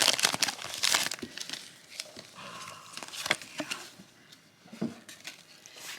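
Foil booster-pack wrapper crinkling and tearing open for about the first second, then scattered light clicks and rustles of trading cards being handled.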